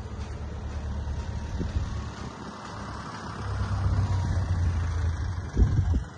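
Engine running with a low rumble, growing louder in the second half, while hydraulic cylinders swing a laser land leveler's transport wheel upward; a thump near the end.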